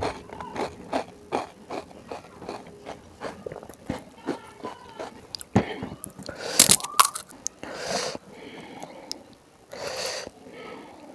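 Close-miked crunching and chewing of pani puri: crisp shells crackling with wet mouth sounds. A loud bite comes about six seconds in, followed by two sharp breaths as the spicy filling takes hold.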